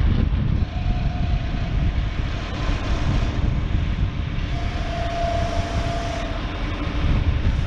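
Tractor diesel engine idling steadily. A thin whine comes in about a second in and again about halfway through, each time for a second or two.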